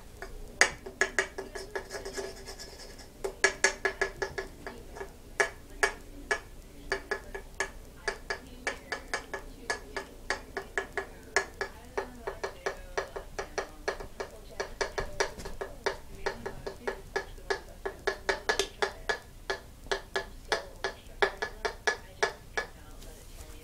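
Light, irregular tapping clicks, two to four a second, with short breaks between runs, each click with the same slight hard ring.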